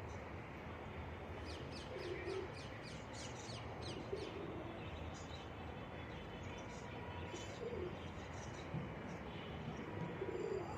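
Pigeons cooing: four short low coos, about two seconds apart. A rapid run of high chirps from a small bird comes in about one and a half seconds in.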